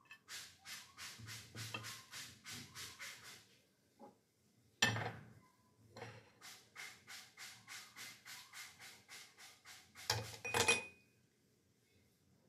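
Two runs of rhythmic scraping strokes, about five a second, broken by a single sharp knock, with a short cluster of sharp clicks near the end.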